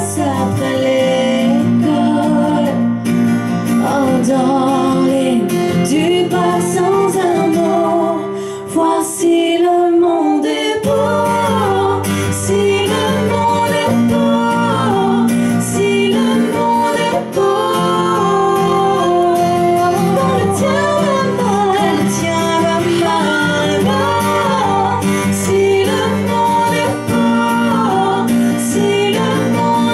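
Live folk song: two women singing, at times together, over acoustic guitar and a second guitar. The low accompaniment thins out briefly about nine seconds in and comes back fully around eleven seconds.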